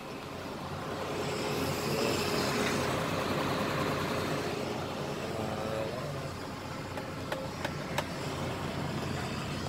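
Truck engine running steadily, heard from inside the cab, growing a little louder over the first couple of seconds. A few faint clicks sound near the end.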